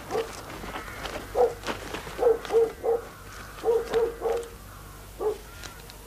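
A dog barking repeatedly, in groups of two to four short barks.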